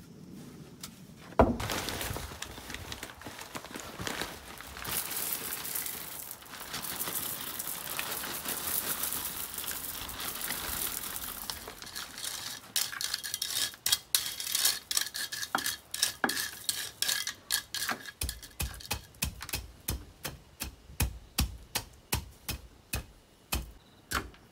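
Crushed gravel poured from a plastic bag and spread by hand: a long steady rustling pour, then many short clicks and knocks as the stones are worked and settled. A single sharp knock sounds about a second in.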